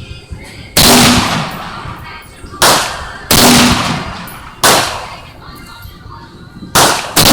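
AR-15 rifle firing semi-automatic shots at an uneven pace, about six in all. Each crack is followed by a long echoing decay, and the last two come close together near the end.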